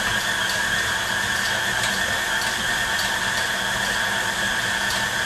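KitchenAid Artisan stand mixer running steadily at about speed 4, its motor and gears whining, while a Metro Design scraper beater blade mixes cookie dough in the glass bowl. Faint regular ticks come about twice a second.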